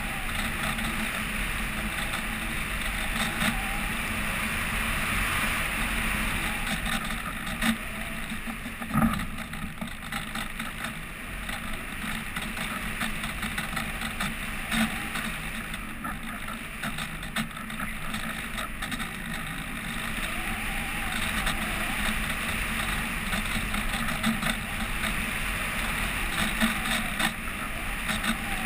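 Steady rushing drone of an RC glider in flight, heard through a GoPro HD Hero 2 in its housing mounted on the plane. Scattered light ticks, and one louder knock about nine seconds in.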